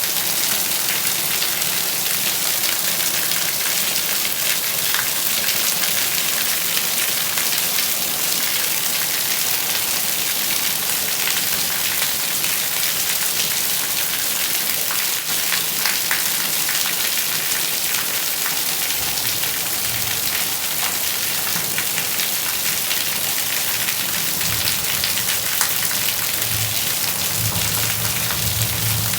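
Steady rain falling on a surface, a dense even hiss with the ticks of single drops. In the second half a low rumble comes and goes beneath it.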